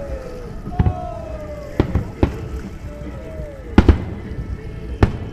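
Aerial firework shells bursting in a string of sharp bangs, about six over a few seconds, two of them in quick succession near the middle.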